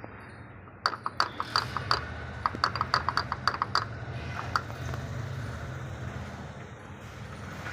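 Fiat Punto engine running with a steady low hum, with a series of sharp, irregular metallic clicks for a few seconds that stop about halfway through.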